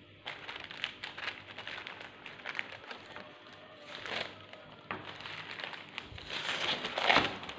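Baking paper and a cotton kitchen towel rustling and crinkling as hands lay the towel and a plastic cutting board over a cake tin, with scattered light taps and knocks; the loudest, longest rustle comes near the end.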